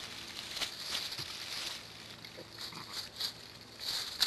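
Dry leaf litter rustling and crackling under a ewe and her newborn twin lambs as they shift their feet, with scattered small crackles.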